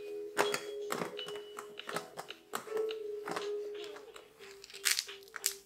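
Plastic toys on a baby's piano play gym clicking and rattling, over a simple tune of held electronic tones that steps in pitch, with short repeated notes near the end.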